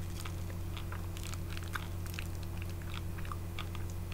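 Close-up chewing of a dried fig: irregular small crunches, several a second, as its gritty seeds crack between the teeth. A steady low hum runs underneath.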